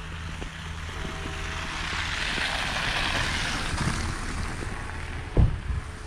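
A vehicle passing along the street: its tyre and road noise swells to a peak and fades over a few seconds, over a steady low hum. A short, loud low thump comes near the end.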